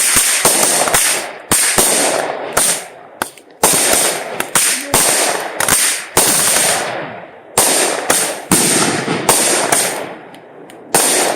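Consumer fireworks going off: a rapid series of sharp bangs, about one a second, each followed by a crackling hiss that fades away.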